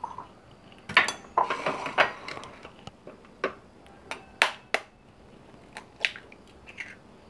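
Hen's eggs being cracked by tapping the shells with a metal fork over a ceramic bowl: a run of sharp taps and clinks at irregular intervals, some in quick clusters.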